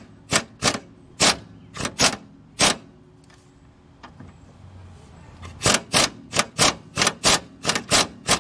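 Impact wrench hammering a rear lower control arm bolt on a 1997 Honda Civic in short trigger bursts, about three to four a second, with a pause of about three seconds in the middle. The bolt is breaking loose and backing out.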